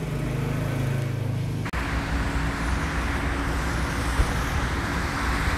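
Road traffic noise from vehicles passing on a highway, a steady rumble and hiss. It starts abruptly about two seconds in, cutting off a few steady low humming tones.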